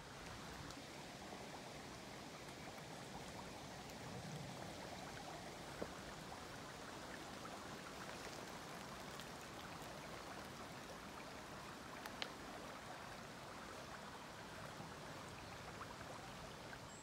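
A river flowing: a faint, steady rush of water, with two short clicks about six and twelve seconds in.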